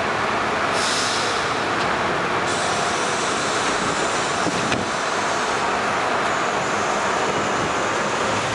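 R-42 subway train standing at an elevated platform and starting to pull out: a steady rumble of running equipment, with a burst of air hiss about a second in and one sharp knock about halfway through.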